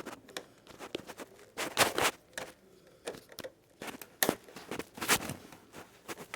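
Screws being driven back into the plastic casing of a Dell Inspiron One 2320 all-in-one computer while the casing is handled: scattered clicks with a few short scrapes.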